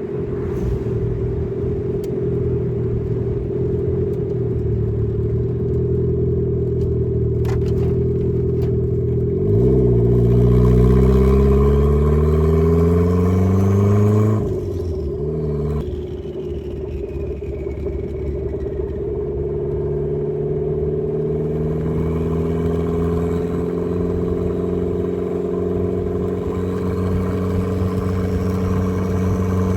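Turbocharged Mazda Miata engine under way, steady at first. About ten seconds in it pulls hard, revs rising for about four seconds, then they drop suddenly and later climb slowly again, with a faint high whistle rising with the revs.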